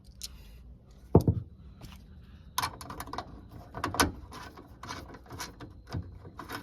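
Hand tools and the boot latch's Torx bolts clicking and knocking, a string of sharp metal clicks with a loud knock about a second in and a busy run of clicks in the middle.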